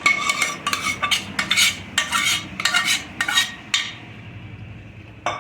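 A spoon scraping and clinking against a cooking pan in a quick run of strokes, as boiled mutton is mixed into the pepper masala. The stirring stops about four seconds in, and a single knock follows near the end.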